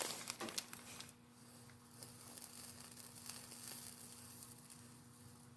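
Faint, steady hiss of a small oxygen-fuel torch flame heating a valve for silver soldering, after about a second of light handling clicks at the start. A steady low hum runs underneath.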